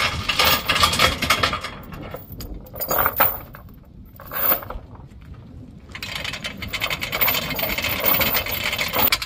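Steel tie-down chains clinking and scraping as they are pulled and hooked to secure a UTV on a trailer. The rattling comes in spells, dies down for a couple of seconds in the middle, then picks up again and runs on steadily.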